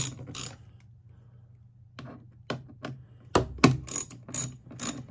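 Irregular metallic clicks and taps of a socket ratchet and Torx screws being loosened and twisted out of a pump's cover: a few clicks at the start, a quieter second or so, then a quick run of clicks from about two seconds in.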